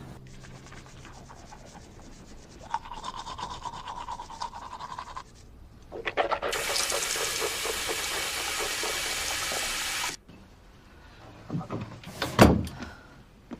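Running water, a loud steady gush for about three and a half seconds that is shut off abruptly, preceded by a fainter rhythmic scrubbing or brushing sound. A few knocks follow near the end, one of them sharp.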